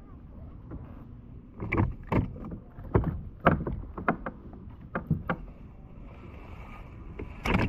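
Irregular knocks and clunks against a kayak's hull, about nine in all, sharp and uneven in spacing, as gear is handled aboard.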